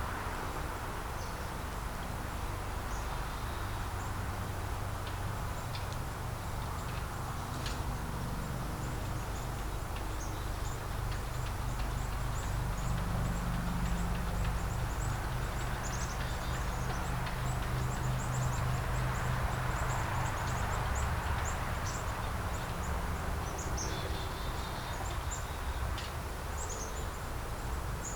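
Chickens in an outdoor run, with small bird chirps and insect sounds scattered throughout over a steady low rumble.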